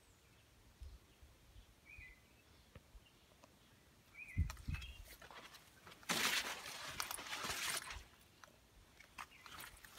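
Outdoor garden ambience with a few faint bird chirps, a couple of low handling bumps a little after four seconds in, and a loud noisy burst lasting about two seconds from about six seconds in.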